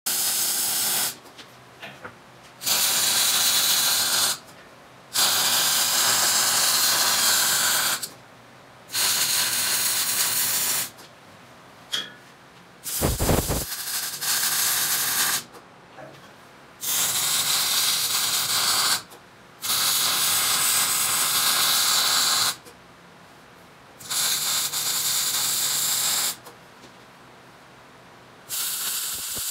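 MIG welder laying a series of short welds on steel tubing: a steady crackling hiss in about nine bursts of one to three seconds each, with brief pauses between them. A low thump about halfway through.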